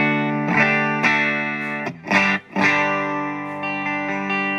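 Electric guitar played through a Blackstar ID-series combo amp with a 10-inch speaker, its TVP valve-power emulation switched on. Ringing chords are struck one after another, cut off briefly about two seconds in, then struck again.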